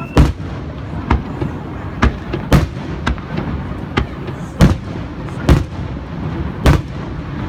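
Fireworks display: aerial shells bursting overhead with about nine loud, sharp bangs at irregular intervals, half a second to a second apart.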